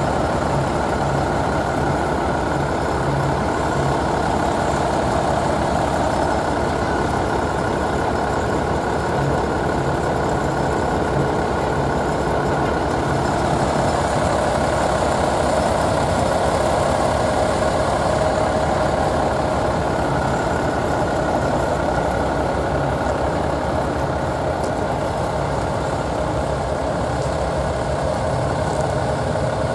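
A large engine idling steadily, its level even throughout.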